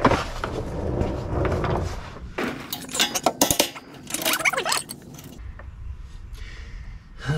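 Hammer blows on steel suspension hardware at the rear track bar. There is a hit right at the start, then a quick run of sharp metallic clanks and clinks from about two and a half to nearly five seconds in.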